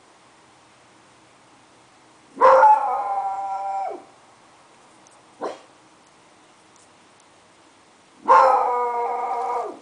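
A dog howling: two long, steady howls about a second and a half each, each dropping in pitch as it ends, with a short call in between.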